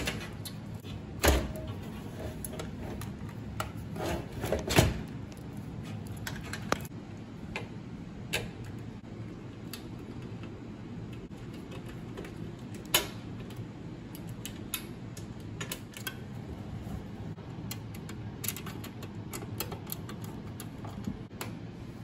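Irregular clicks, taps and knocks of hands working on a desktop PC, handling cables and parts in the steel case and turning a rear-panel screw with a pen-style screwdriver. A few louder knocks come in the first five seconds.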